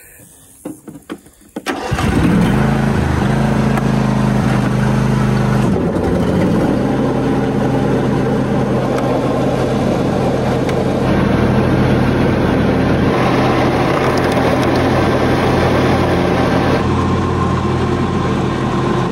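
John Deere E180 riding mower's engine cranking briefly and catching about two seconds in, then running steadily. Its pitch shifts about six seconds in.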